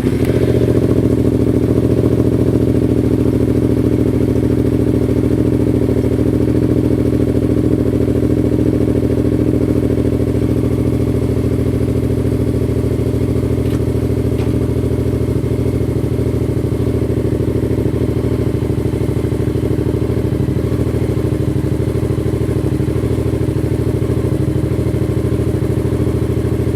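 Yamaha FZ-07's 689 cc parallel-twin engine idling steadily, freshly started in first gear with the clutch lever pulled in.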